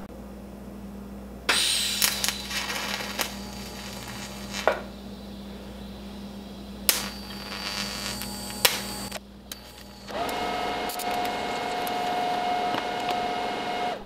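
Power tool work: a small motor-driven tool runs in short spells, with a few sharp snaps in between. In the last few seconds it runs at a steady pitch, then stops abruptly.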